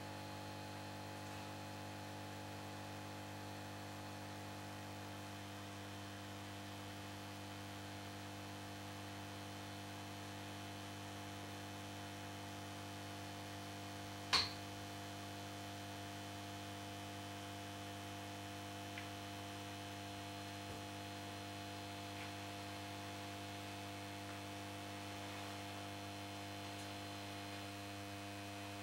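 Steady mains hum from the old 125 W magnetic choke ballast of a lit Tesla RVL 125W mercury-vapour lamp, the lamp running at full glow. A single sharp click comes about halfway through, and a few faint ticks follow later.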